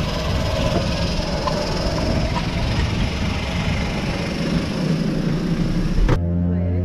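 Loud, steady aircraft engine noise with a low hum beneath it. About six seconds in, it cuts off abruptly to background music with a held low drone.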